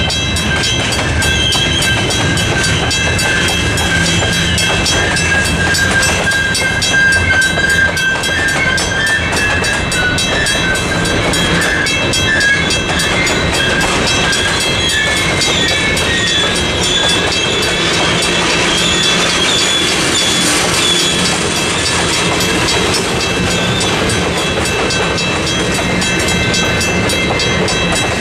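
Western Cullen Hayes mechanical crossing bell ringing steadily with fast, even strokes at the flashing crossing signal, over a freight train of gondolas and tank cars rolling past with its wheels clacking over the rail joints.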